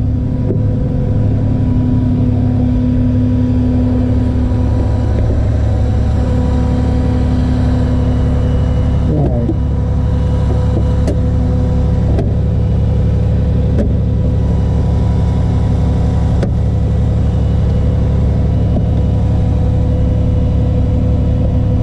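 A vehicle engine running steadily at a constant speed, a loud, even hum that holds unchanged throughout.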